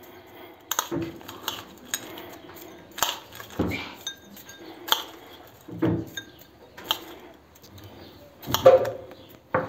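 A metal spoon clinking and scraping against glass dessert bowls and a plate while crushed ice is scooped into the bowls: a string of irregular clinks with short scrapes between them.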